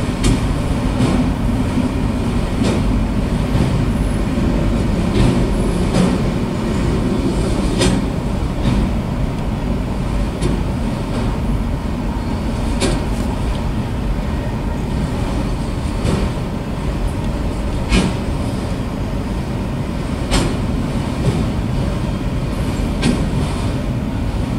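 Freight train of autorack cars rolling past at a grade crossing: a steady rumble of wheels on rail, with sharp clacks every second or two as the wheels pass over rail joints.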